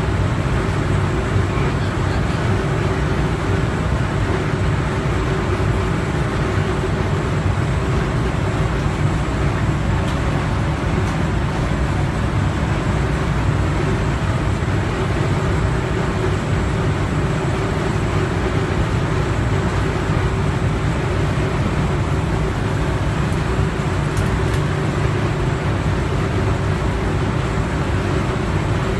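Steady machinery running noise from a commercial refrigerator's condensing unit, compressor and condenser fan, with a low rumble and a faint steady hum. It is running while refrigerant is charged into it through a gauge manifold.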